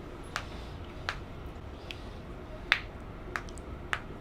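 Ankle joints popping as they are twisted and worked: six sharp cracks, spaced well under a second apart, the loudest a little past halfway.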